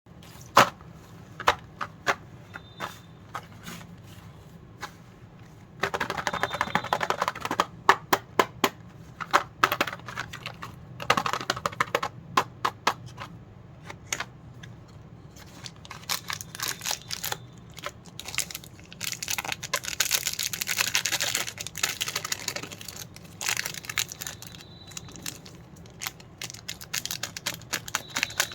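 Candy wrappers and plastic packets crinkling, with many sharp clicks and taps as sweets are handled, and louder bouts of rustling now and then.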